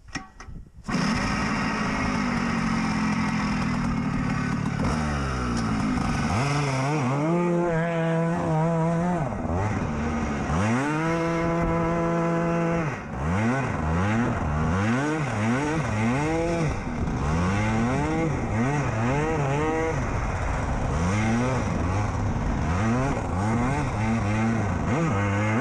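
A go-kart's small air-cooled engine comes in suddenly about a second in. It is revved up and down over and over, its pitch rising and falling about once a second, with a few longer steady high-revving stretches.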